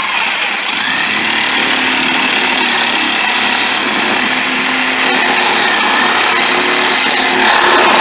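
Handheld power tool running steadily under load, cutting into the Jeep's body, its motor holding a fairly even pitch with slight dips.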